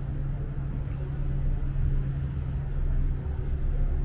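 Tour boat's engine running with a steady low hum.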